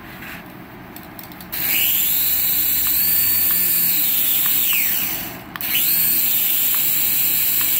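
Small electric motors of a toy remote-control helicopter spinning its rotors with a whine, spun up about a second and a half in, easing off a little past halfway, then spun up again and winding down near the end.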